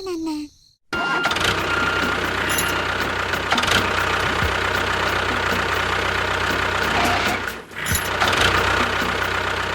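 A motor vehicle engine running steadily and loud, briefly dipping about three quarters of the way through before picking up again.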